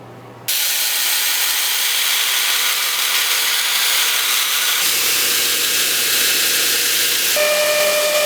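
Power grinder grinding steel, shaping the pry-bar ends of bottle-opener pry bars: a loud, steady rushing noise that starts abruptly. About five seconds in a low hum joins, and near the end steady whining tones come in.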